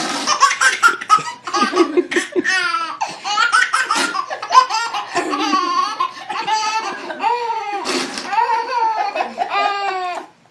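Baby laughing hard in long runs of rapid belly laughs.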